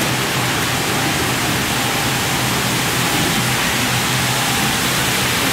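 A steady, even hiss of background noise with a faint low hum under it. No distinct events stand out.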